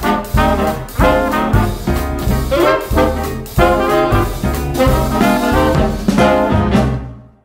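Upbeat swing-style background music led by brass, with a strong regular beat, fading out near the end.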